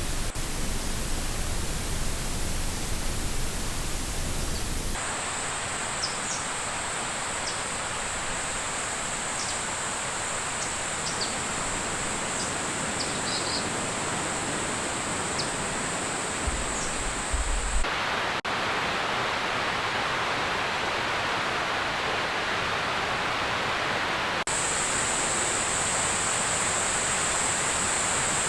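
Steady outdoor hiss of rain or rushing water in a forest, with insects trilling high above it. Brief chirps come through in some stretches. The sound changes abruptly several times, as between spliced clips.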